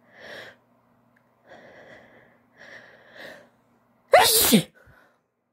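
A woman's sneeze build-up: three short, gasping in-breaths, then one loud, wet allergy sneeze about four seconds in with a falling voiced cry, followed by a soft breath out.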